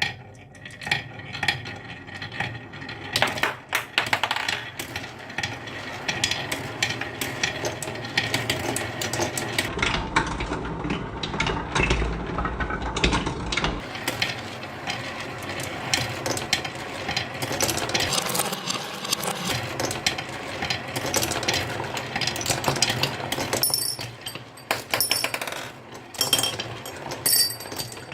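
Marbles rolling and clattering down a marble run, a continuous stream of clicks, clacks and rattles as they hit the track pieces and each other, with a low rumble for a few seconds near the middle.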